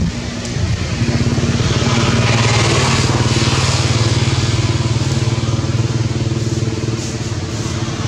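A motor vehicle engine running steadily. It grows louder about a second in, then eases off slightly toward the end.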